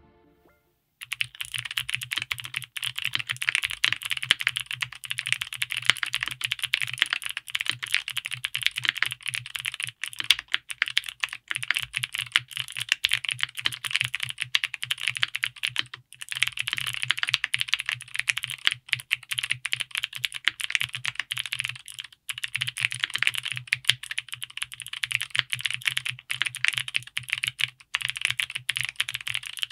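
Fast continuous typing on an Owlab Vento 80 gasket-mount mechanical keyboard with GMK ABS double-shot keycaps: a dense stream of keystroke clacks with a low thock under them. The typing starts about a second in and pauses briefly twice.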